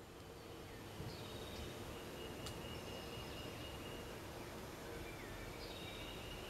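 Faint woodland ambience: small songbirds giving thin whistled notes and short sliding calls, several times, over a low background hiss.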